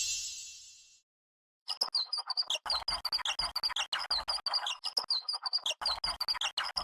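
Cartoon sound effect of fast, bird-like chirping, a run of short high chirps several times a second that begins about a second and a half in. It follows the fading tail of a shimmering chime effect at the start.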